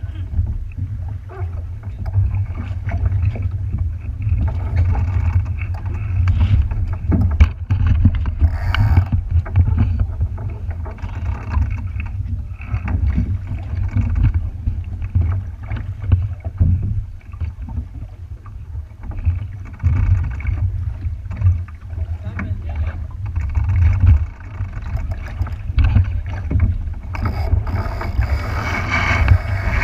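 Wind rumbling on the microphone while water splashes and slaps against a boat's hull, an uneven, gusting noise with scattered knocks.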